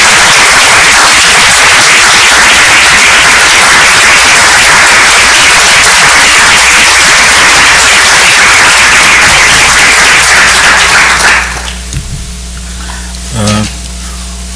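Audience applauding, a dense clatter of many hands that stops abruptly about eleven seconds in, leaving a quiet room.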